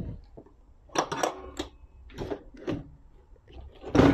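Metal clanks and rattles of an ambulance's sliding stretcher loading platform being pulled out and shifted, a series of sharp knocks with a louder bang near the end.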